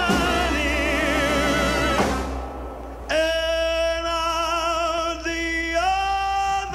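Music: a singer holding long notes with vibrato over a backing track, breaking off briefly about two seconds in, then holding a new note that steps up in pitch near the end.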